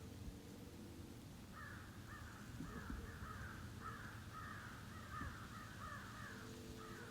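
Crow cawing faintly: a run of about a dozen quick caws starting about a second and a half in. A faint low steady hum lies underneath.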